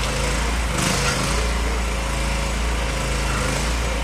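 Small engine running at a steady speed, with a brief hiss just before the start and another about a second in.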